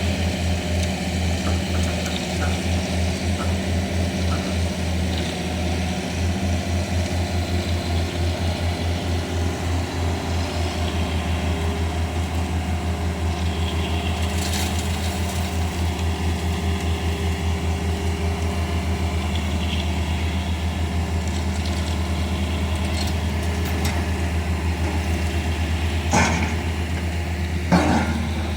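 Hitachi excavator's diesel engine running steadily with a low, fast-pulsing rumble. Two sharp knocks come near the end.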